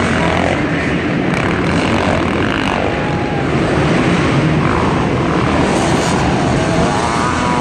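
Several motocross bikes racing around an indoor dirt track, their engines revving up and falling back in overlapping rising and falling whines.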